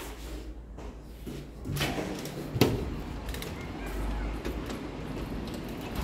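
A metal-framed glass entrance door being opened, with one sharp clack about two and a half seconds in; background noise comes up from just before that as the door opens to the outside.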